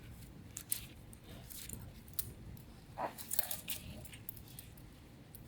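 Hands handling a watch box and its packaging: scattered sharp clicks and brief rustles, with a cluster of louder knocks about three seconds in.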